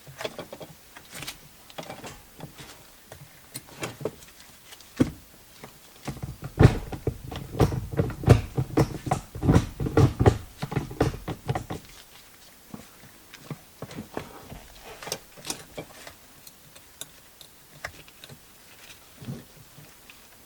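Irregular clicks and knocks of hand work on a car's handbrake lever while a handbrake extension is fitted. A dense run of louder knocks comes from about six to twelve seconds in.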